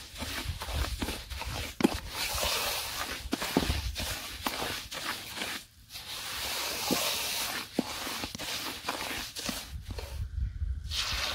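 Wooden spatula stirring and scraping crumbly butter-toasted flour around a wide metal pan: a scratchy scraping with frequent light knocks of the spatula against the pan. The sound breaks off briefly near the middle and again near the end.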